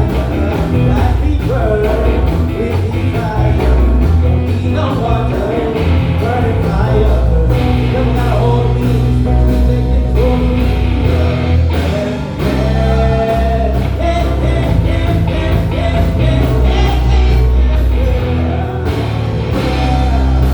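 Live band playing an upbeat rock-leaning song: electric bass, drum kit and keyboard under a gliding lead melody line.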